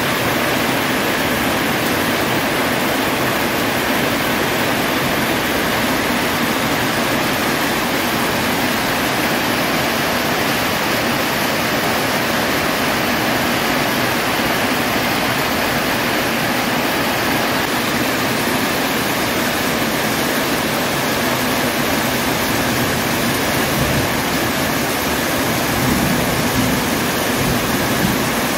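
Heavy rain falling steadily on corrugated zinc roof sheets: a dense, even hiss.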